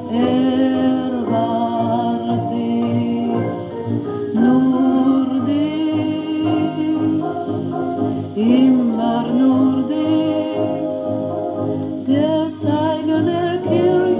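A 1930s German chanson with orchestra, playing from an old shellac record on a vintage radio-phonograph console. A low, wavering melody line runs over the band, and the sound lacks high treble, as an old disc does.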